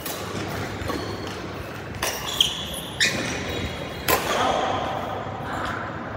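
Badminton players' shoes squeaking on the court floor and a few sharp knocks, echoing in a large indoor hall.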